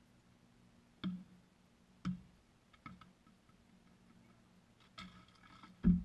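Basketball bouncing on pavement, a few separate thumps with a short low ring, about a second apart at first and loudest near the end. Faint voices are heard just before the last bounce.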